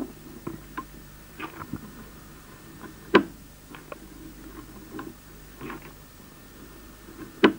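Irregular small clicks and ticks, with two sharper, louder clicks about three seconds in and near the end, over a faint steady low hum.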